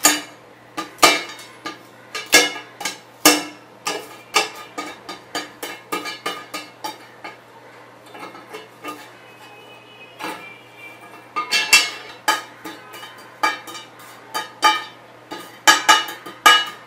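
Steel ruler tapping, prying and scraping at a brittle crust of charred, burnt plastic on an aluminium surface: irregular sharp clicks and cracks as pieces snap off and drop onto the metal, some with a short metallic ring. There is a quieter stretch midway.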